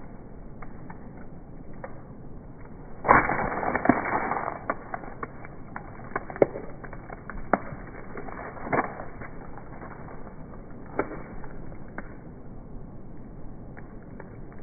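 Sharp knocks and cracks of things being struck and breaking. A louder crunching burst lasts about a second and a half from about three seconds in, then single sharp hits follow every second or two.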